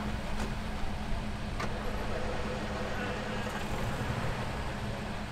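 A vehicle engine running steadily at idle, a low even hum with no change in speed.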